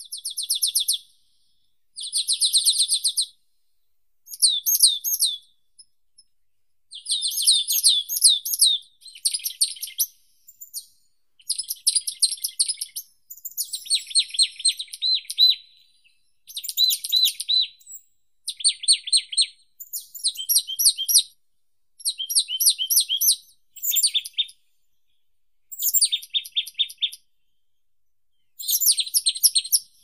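A songbird sings short, fast, high trilled phrases, repeated about every two seconds with brief pauses between them.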